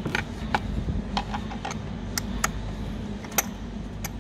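Light metallic clicks and taps from a spark plug socket on a short extension as a new spark plug is turned in by hand, about two clicks a second at irregular intervals, over a steady low hum.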